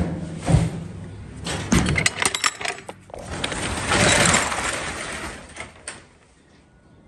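Metal gear being handled at the back of a box truck: sharp clanks and knocks, a quick run of clicks about two seconds in, and a longer scraping rush around four seconds in.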